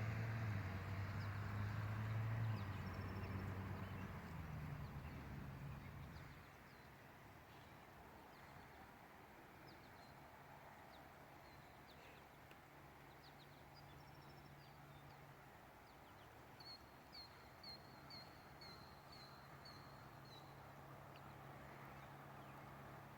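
A vehicle engine hums and fades away about six seconds in. Then comes quiet countryside ambience with small birds chirping, including a quick run of about eight high chirps near the end.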